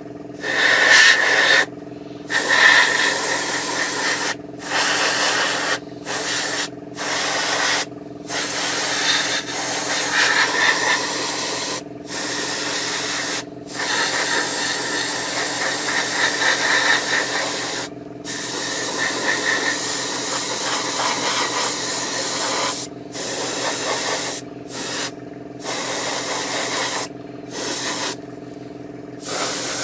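Airbrush spraying paint in about fifteen bursts of hiss, each one to a few seconds long with short breaks between them. A steady low hum runs under them throughout.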